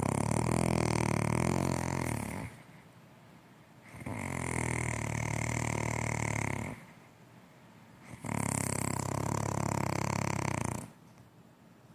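A sleeper snoring: three long snores, each about three seconds, about four seconds apart, with quieter pauses between them.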